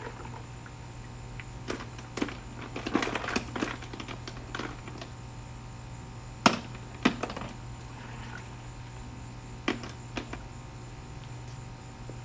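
Scattered sharp clicks and knocks of small hard objects being handled, with a close cluster a few seconds in and the loudest knock about halfway, over a steady low hum.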